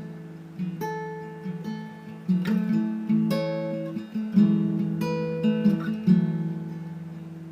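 Acoustic guitar playing in an instrumental passage of a song, with plucked notes and strummed chords that ring out and fade.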